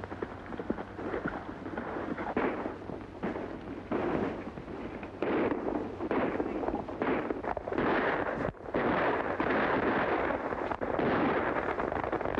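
Horses' hoofbeats and a rapid run of gunshots, on a hissy old film soundtrack. The shots grow louder and denser from about a third of the way in.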